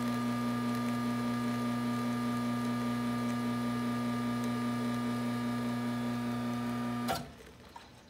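Rocket Boxer espresso machine's rotary pump running with a steady hum while pulling a double shot of espresso. About seven seconds in it cuts off with a short click as the programmed 2-ounce volumetric dose ends.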